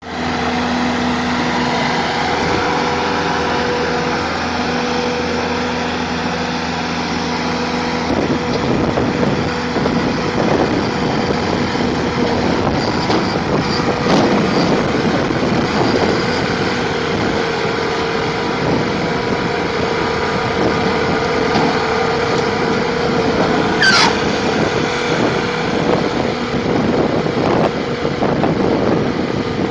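Bobcat skid-steer loader's diesel engine running steadily under load, with a steady whine and a rough rumble as it drives with a large wheel-saw attachment. One brief sharp squeal falling in pitch cuts in once, late on.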